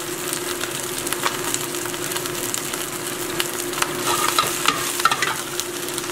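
Bok choy with ginger and garlic sizzling in hot oil in a wok, with scattered pops, as it is stir-fried; the greens are tossed and stirred about four seconds in. A steady hum runs underneath.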